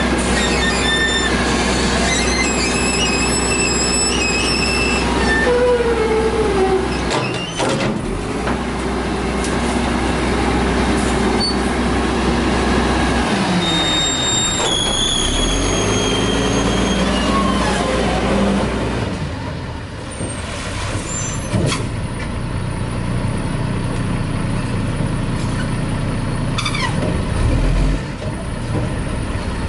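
Diesel engine of a WhiteGMC front-loader garbage truck running hard to power the Heil body's hydraulics while the lift arms cycle over the cab. High metal-on-metal squeals and whines come from the arms, with a short air-brake hiss about seven seconds in. The engine sound drops after about nineteen seconds as the truck moves on.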